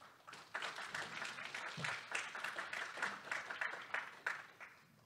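Audience applauding, thinning out and dying away near the end.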